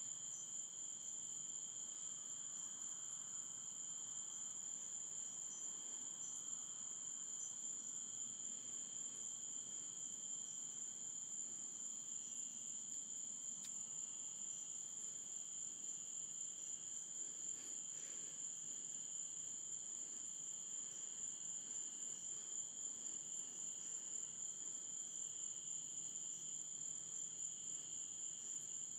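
Night insects chirring in a continuous, high-pitched chorus at two pitches.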